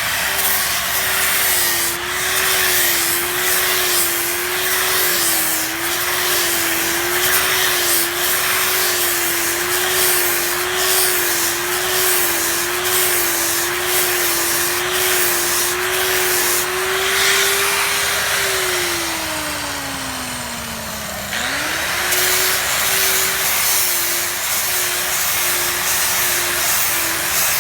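Electric power tool bevelling and buffing a steel pipe end for welding: the motor runs with a steady, slightly wavering hum over continuous grinding and scraping. About two-thirds of the way through, the motor's pitch drops steadily for about three seconds, then quickly comes back up.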